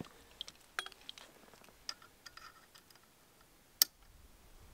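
Scattered light clicks and taps of hands handling a rifle mounted in a saddle on a tripod, with one sharper click a little before the end.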